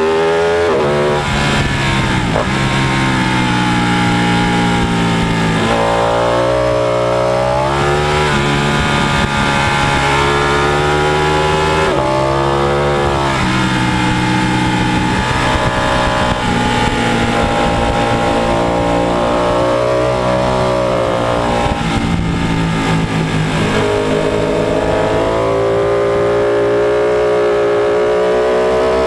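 Sportbike engine ridden hard on a race track, heard from on the bike: the revs climb in pitch under acceleration and drop sharply at gear changes and braking, again and again.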